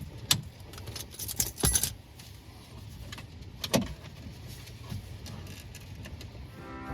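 Sharp clicks and light metallic rattling of tools and small parts being handled while working on a car's ignition switch area, with a cluster of clicks around a second and a half in and another loud click near four seconds.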